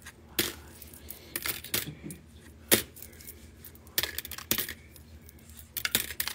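Small polished stones clicking against each other and a plastic tray as they are picked out one at a time and counted into a palm: a dozen or so sharp clicks at irregular intervals, the loudest a little before three seconds in.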